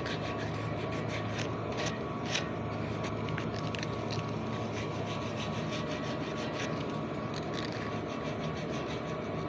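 Sandpaper rubbing back and forth on a rusty steel fan-motor shaft, many quick rasping strokes, to clean off the rust so the shaft will slide out. A steady machinery hum runs underneath.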